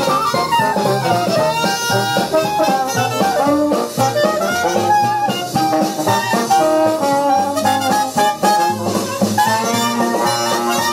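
Music from a stereo demonstration record playing on a Magnavox Stereophonic solid-state portable record player, heard through its two suitcase speakers, continuous and fairly loud.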